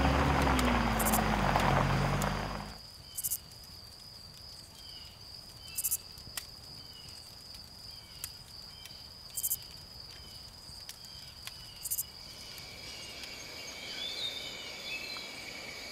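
A jeep engine running as the vehicle drives up a dirt track, its hum dropping in pitch, then cut off suddenly after about two and a half seconds. After that, a steady high-pitched insect drone with short loud buzzy bursts every few seconds and faint chirps, and a second, lower steady insect tone joining near the end.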